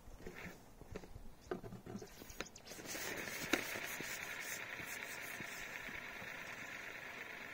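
Light knocks and clicks from a carbon fishing pole being handled on a seatbox. About three seconds in, a steady hiss sets in and stays, with one sharp click soon after it starts.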